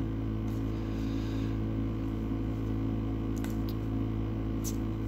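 Steady low hum with a few faint ticks, a little after the middle and near the end, from baseball cards being handled and flipped.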